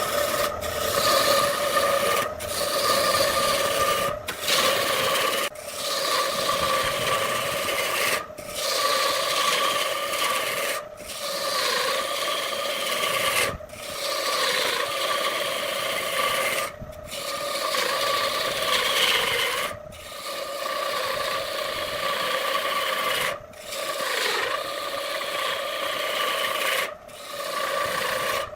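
Wood lathe running with a steady motor hum while a turning tool cuts into the spinning wood, a continuous rasping scrape. The sound breaks off briefly and sharply about every two to three seconds, then resumes.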